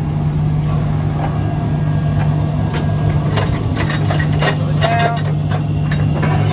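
A heavy engine idling with a steady low hum. About three to five seconds in, a cluster of sharp clicks and knocks comes as a cargo strap is pulled down the flatbed trailer's side.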